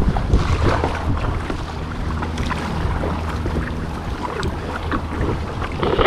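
Water splashing and sloshing around an ocean kayak at sea, with wind buffeting the action-camera microphone and a steady low hum underneath.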